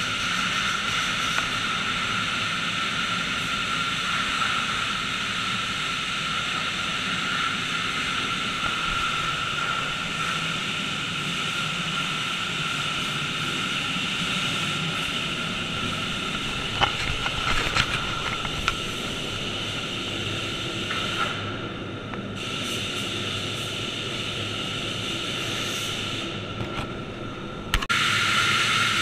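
High-pressure washer wands spraying water onto a semi truck: a steady hiss with a high whine in it. A few sharp clicks come about seventeen seconds in, the spray turns duller twice in the second half, and it comes back louder near the end.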